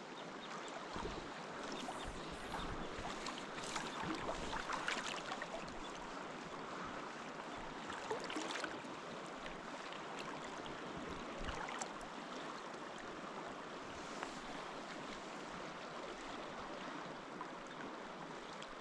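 River current flowing steadily past a wading angler, with a few brief faint knocks and splashes.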